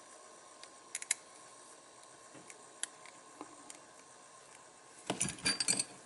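Light metallic clicking from pliers and tiny lighter valve parts being handled: a few faint single clicks in the first seconds, then a quick cluster of sharper, louder clicks about five seconds in.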